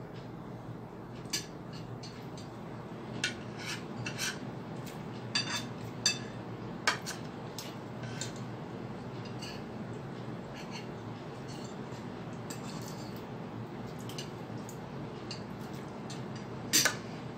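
Metal fork and spoon clinking and scraping against a plate while eating: scattered sharp clicks, thickest in the first several seconds, sparse through the middle, with a louder pair of clinks near the end.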